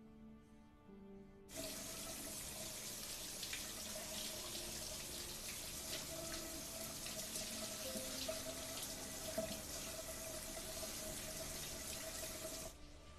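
Soft music, then a shower head spraying water that starts suddenly about a second and a half in. The spray is a steady hiss that cuts off sharply just before the end.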